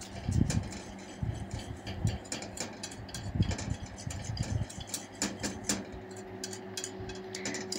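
Wire whisk clicking and scraping against a stainless steel saucepan as a milk-and-cornstarch cream is whisked on the heat while it thickens, with a few dull knocks in the first half and a steady low hum underneath.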